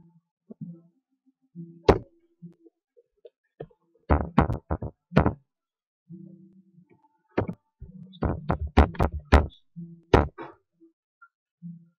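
Computer keyboard keys struck close to the microphone in short bursts of typing: one hard keystroke about two seconds in, a quick run of about five a little later, then a run of about ten keystrokes and a final single one.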